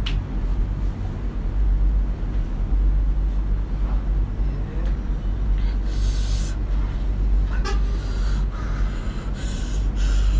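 Sharp hissing breaths through the mouth, several in the second half, from a person suffering the heat of very spicy noodles, with a short vocal sound among them. A steady low rumble runs underneath.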